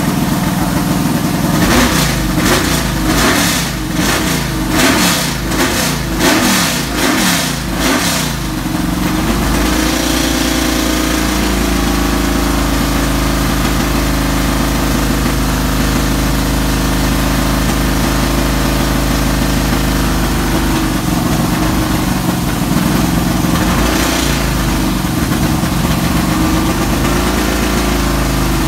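Race car engine revved in a quick series of sharp throttle blips for several seconds, then settling to a steady idle.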